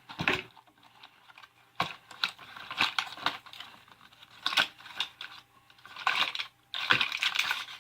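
Plastic cough-drop packaging being handled and opened, crinkling in irregular bursts with sharp clicks.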